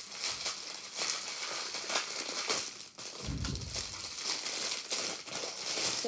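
Clear plastic wrapper crinkling and crackling as it is handled and pulled off a popsicle-shaped pop-it fidget toy, with a soft low thump about three seconds in.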